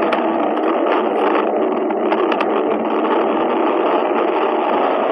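Vehicle engine running steadily as it drives along a wet dirt road.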